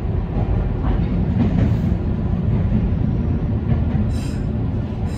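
Meitetsu 5000 series electric train heard from the cab as it runs into a station: a steady low rumble of wheels on rail with a few light clacks, and a short high-pitched hiss about four seconds in.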